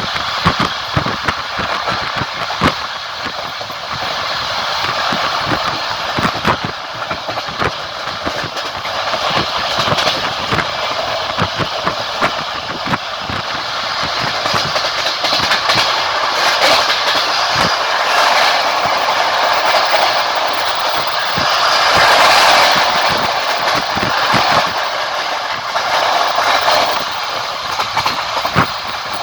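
Passenger train wheels clacking over rail joints, heard from inside a moving carriage, over a steady rushing running noise. The rushing swells for a few seconds about two-thirds of the way through.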